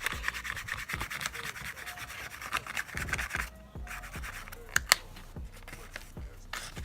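Spoolie brush bristles scratching quickly back and forth through false eyelashes, close to the microphone, in many short rasping strokes, with two sharp clicks about five seconds in.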